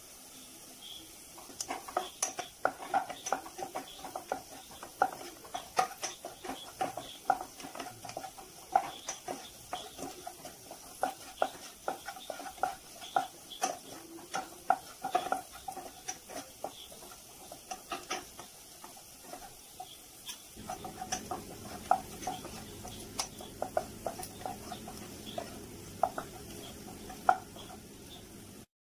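Wooden spatula stirring and scraping chopped onions and chilli powder in a nonstick frying pan, with irregular knocks of the spatula against the pan over a faint sizzle of the onions frying in oil.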